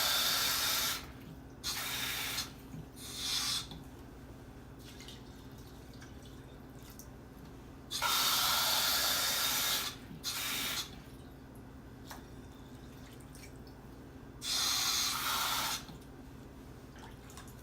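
Water running from a tap in several short bursts, with pauses between, as cupfuls of water are measured out for the rice.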